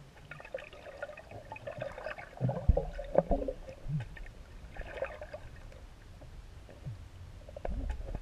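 Muffled sloshing and gurgling of pool water heard underwater at the bottom of a swimming pool, stirred by a person wading. A few dull knocks come about three seconds in.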